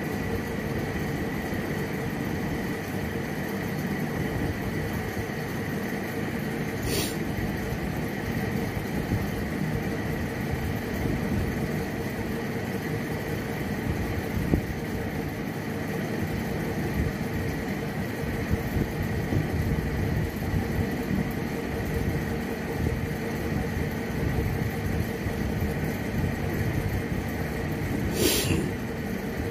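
A steady mechanical hum with a faint high whine, with soft irregular licking from a cat lapping at a squeeze-tube treat. A short hiss comes about seven seconds in and another near the end.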